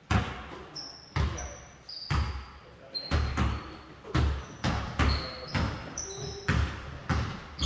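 Basketballs bouncing on a hardwood gym floor: about fifteen irregular thumps that echo through the hall. Short high sneaker squeaks come in between them.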